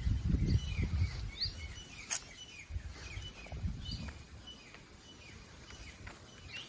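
Small birds chirping and calling: short high chirps and quick downward-sliding whistles, scattered and overlapping. A low rumble sounds in the first second and again briefly partway through.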